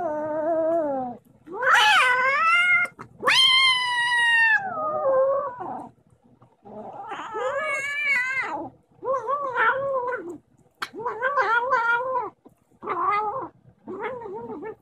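Kitten yowling over its bowl of wet food, a run of about eight long, wavering, bending wails, the loudest in the first few seconds and shorter ones toward the end: the sound of a kitten guarding its food from another kitten.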